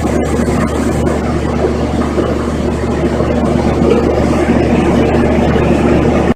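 Loud, steady machinery hum and rumble, with a constant low drone under it. It cuts off suddenly at the end.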